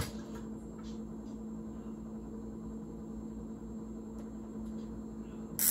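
Steady low electrical hum made of several fixed tones, with a few faint ticks and a short hiss near the end.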